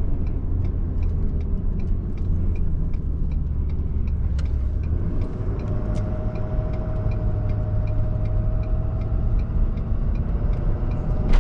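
Road noise and engine rumble heard from inside a truck's cab while driving, with a light regular ticking about twice a second throughout.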